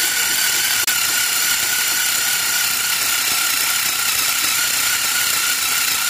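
Zeus 3.6-volt cordless screwdriver running continuously with a steady whine as a drill bit bores into 3/4-inch plywood. The small motor is working hard under the load.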